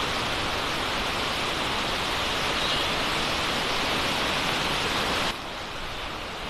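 Steady rain, an even hiss that drops abruptly to a quieter level about five seconds in.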